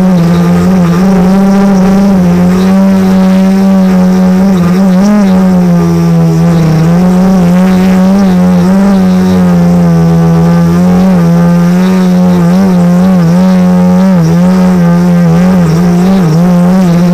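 Quadcopter's electric motors and propellers buzzing loudly and without a break, picked up close by the onboard camera: a strong steady low hum with higher overtones that waver slightly up and down in pitch.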